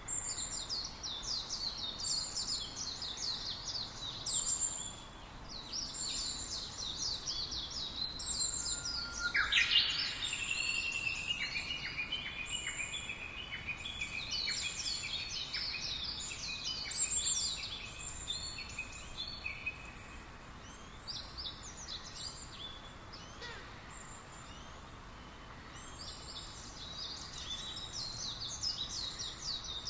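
Several songbirds chirping and singing in a forest, their songs overlapping. High, fast chirp trills come in repeated bursts, and about ten seconds in a lower rising call leads into a run of repeated notes lasting about ten seconds, over a faint steady background hiss.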